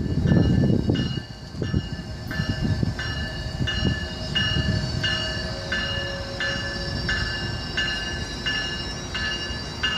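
Tri-Rail commuter train arriving with cab car 504 leading, its bell ringing steadily at about three strikes every two seconds over the low rumble of the train.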